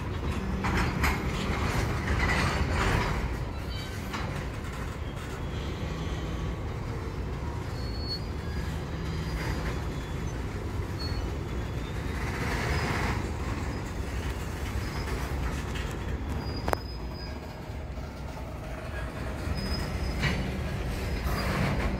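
Freight train of tank cars rolling slowly past in reverse: a steady low rumble of steel wheels on rail, swelling now and then. Brief faint high squeals come from the wheels, and a single sharp click sounds late on.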